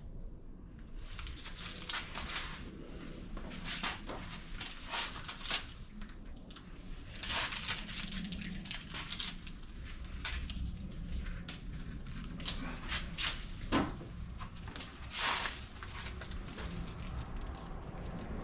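Heater duct tape being handled, peeled and pressed on by hand: an irregular run of short crinkling and tearing noises as the tape refuses to stick.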